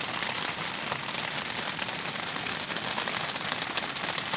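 Heavy rain falling steadily on a tent, heard from inside, as an even hiss with scattered drop ticks.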